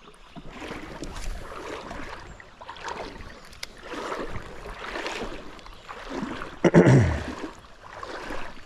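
Water swishing and sloshing around a person's legs as they wade through a shallow river, in surges about once a second. There is a louder low thump about seven seconds in.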